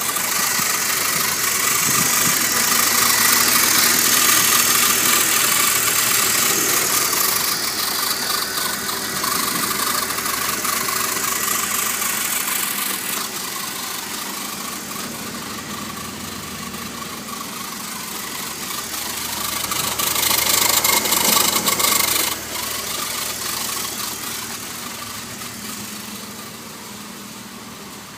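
BMW E46 330i ZHP's 3.0-litre straight-six idling with the funny engine noise the owner is trying to trace, which he takes for a tap. The sound gets louder and quieter as the microphone moves from the engine bay under the car toward the exhaust, loudest about three-quarters of the way through, then dropping suddenly.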